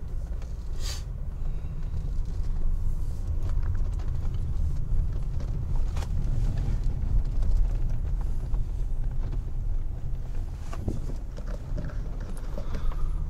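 Low, steady rumble inside the cabin of a Lexus LS 430 driving slowly on a dirt road, with a few faint knocks as the tyres go over bumps.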